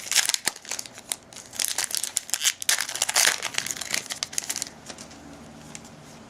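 Trading-card pack wrapper crinkling and tearing as it is opened and handled: a dense run of crackles for about four and a half seconds, then quieter.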